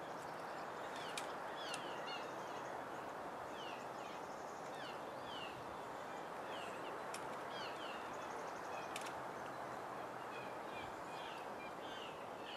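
Outdoor ambience: a steady background rush with small birds giving many short, falling chirps throughout, and a few sharp clicks.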